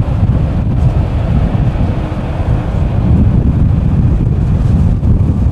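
Wind buffeting the microphone, over the low rumble of a Boeing 787-9's jet engines as the airliner rolls along the runway.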